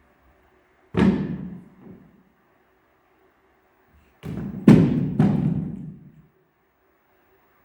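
Heavy thuds: one, then three more in quick succession about three seconds later, each dying away over about a second.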